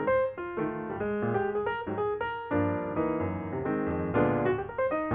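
Background piano music: a flowing melody of quick notes over chords.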